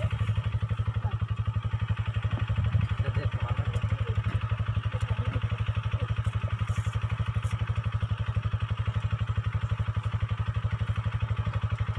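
Dirt bike engine idling steadily close by, with an even, unchanging pulsing beat.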